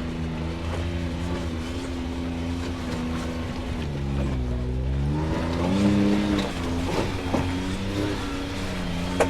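Off-road vehicle engine working through rock crawling, the throttle easing and opening so the engine note falls about four seconds in and climbs again around six seconds. There is a sharp knock near the end.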